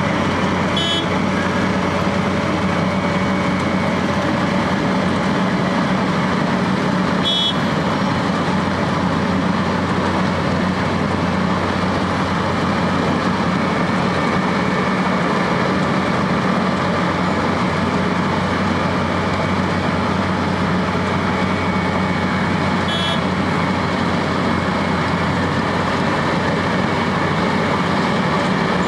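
Wirtgen W210 cold milling machine running under load while milling asphalt: a steady heavy diesel drone with the grinding of the cutter drum. Short high beeps sound three times.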